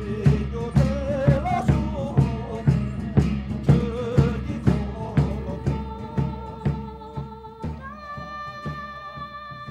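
Music: a wavering sung voice over a steady percussive beat of about two strikes a second. About five seconds in, the singing gives way to long held notes while the beat fades out.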